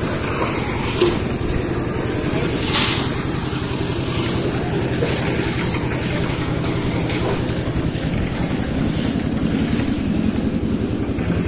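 Engine of a concrete mixer running steadily under load. There is a short knock about a second in and a brief rattling noise near three seconds.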